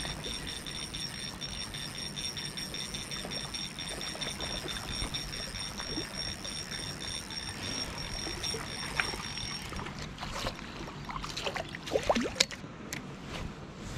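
Spinning reel being cranked on a lure retrieve, a steady high whine with a slight pulse that stops about ten seconds in. A few sharp clicks and small splashy sounds follow.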